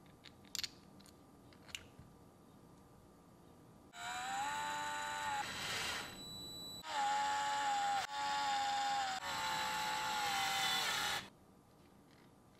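Small electric screwdriver whining as it drives tiny screws into a red aluminum RC axle gear housing. It runs in four or five bursts of one to two seconds, each starting and stopping abruptly, and the pitch sags a little near the end of the last run. A few light clicks of the metal housing halves being fitted together come first.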